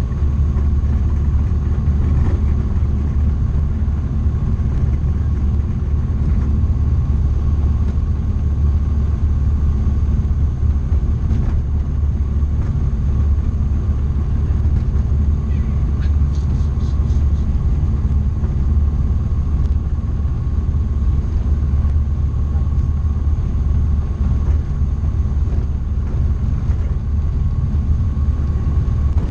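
Tecnam P2002JF light aircraft's Rotax 912 four-cylinder engine and propeller running steadily, a deep even drone heard inside the cockpit.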